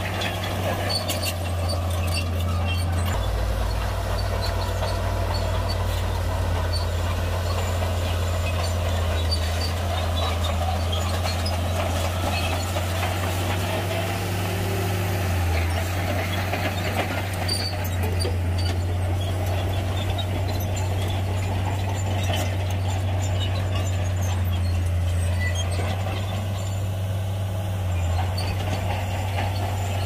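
Shantui bulldozer's diesel engine running steadily under load, its low note deepening about three seconds in, with scattered sharp clicks near the start.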